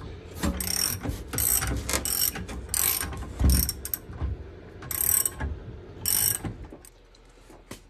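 Irregular bursts of metallic ratcheting clicks and clatter, about one a second, with a heavier thud about three and a half seconds in, as a transmission jack lowers the fuel tank out from under a 1995 Impala SS. The sound fades away for the last second.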